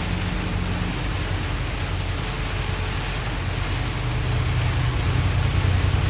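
Steady vehicle cabin noise while driving: a low engine drone under an even rushing hiss, growing a little louder in the last two seconds.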